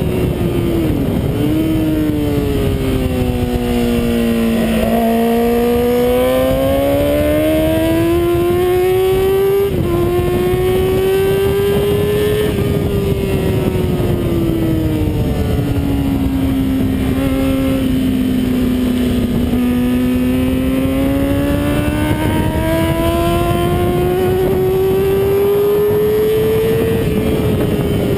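Yamaha R6's inline-four engine at race pace, heard from onboard the bike over wind rush. Its pitch drops as it slows into corners and rises slowly as it pulls out again, with a brief break about ten seconds in and another drop near the end.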